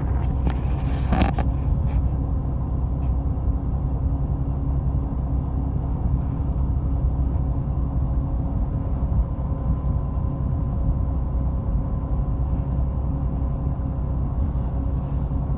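A fishing boat's engine running steadily: a constant low rumble with a steady hum over it. A brief scuffing noise sounds about a second in.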